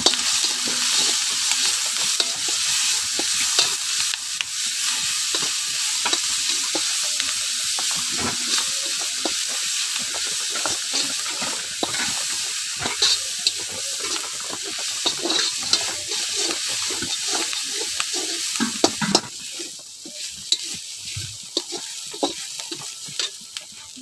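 Onions and garlic paste sizzling in hot oil in a kadai, with a metal spatula scraping and clicking against the pan as it is stirred. The sizzle falls noticeably quieter about five seconds before the end.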